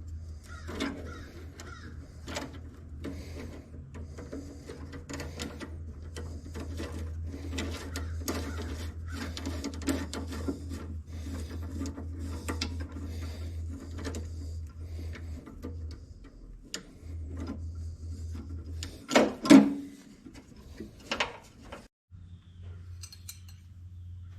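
Hand tools working on the backhoe's metal parts: irregular clicks, taps and clinks throughout, over a steady low hum, with one louder, longer noise about nineteen seconds in.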